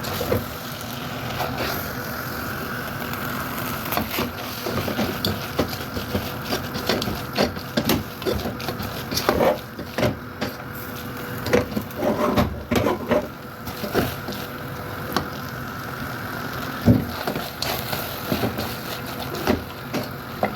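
Spaghetti being stirred and tossed with wet-fry beef in a hot pan: a steady frying sizzle with frequent scrapes and knocks of the cooking spoon against the pan, busiest in the middle.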